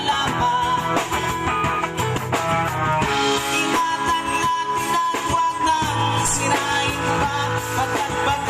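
Busked song with guitar playing and a held melody line, no sung words.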